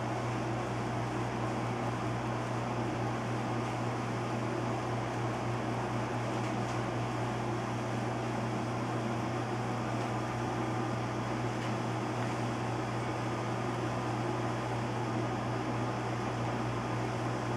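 Steady rushing noise of a derecho's wind and rain heard from indoors through closed windows, holding an even level throughout, with a low steady hum underneath.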